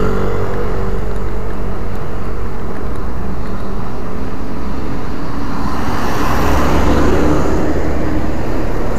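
Road traffic: motor vehicles running past with a steady engine hum and tyre noise. One engine drops slightly in pitch as it passes in the first couple of seconds, and a louder vehicle rumbles past from about six to eight seconds in.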